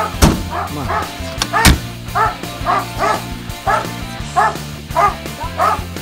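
A dog barking or yipping over and over, about two short calls a second, with two sharp knocks in the first two seconds.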